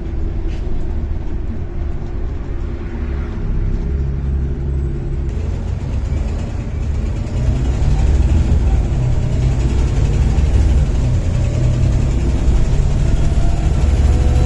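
Volvo B7TL double-decker bus's D7C diesel engine pulling under power: a loud low drone that grows louder about halfway through, with a turbocharger whine rising steadily in pitch over the second half.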